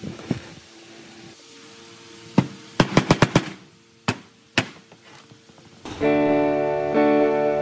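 Several sharp knocks over a faint steady hum, including a quick run of about five near the middle. About six seconds in, plucked-guitar background music starts and becomes the loudest sound.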